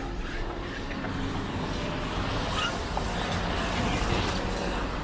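Steady street background noise of road traffic, an even hum with no single event standing out.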